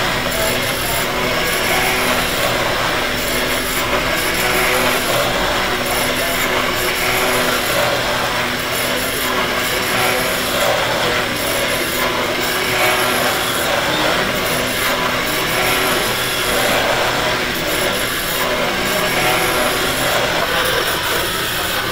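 Machine tool cutting metal, running steadily throughout.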